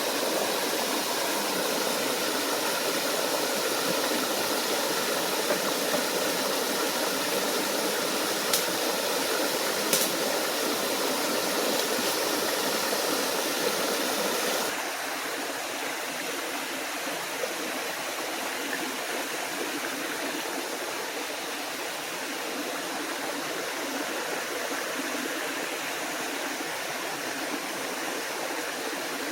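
Steady rush of a small forest waterfall and stream. Two small sharp clicks come about a third of the way in. About halfway through, the rush drops to a softer, thinner sound.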